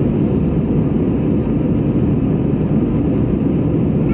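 Steady low roar of an Airbus A320 in flight, its engines and the airflow over the fuselage heard from inside the passenger cabin.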